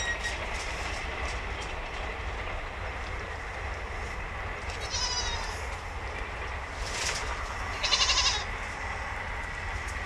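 Young goat kids bleating: a short high call about five seconds in and a louder one around eight seconds, over a steady low rumble.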